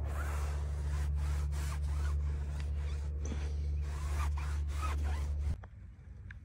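Microfiber applicator pad wiping tire dressing onto a rubber tire sidewall: repeated scratchy rubbing strokes over a low steady hum, which all stop abruptly near the end.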